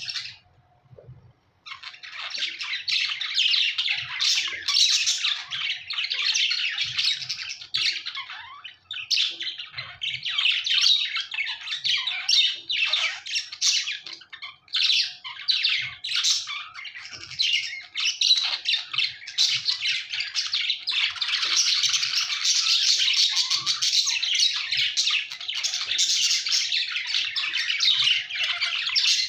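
Budgerigars chirping and chattering in quick, high-pitched, overlapping calls, nearly without a break after a brief pause at the start.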